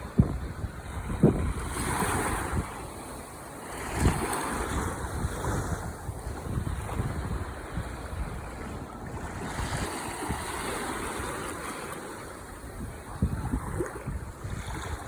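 Ocean waves breaking and washing on the shore, swelling and easing every few seconds, with low gusts of wind buffeting the microphone.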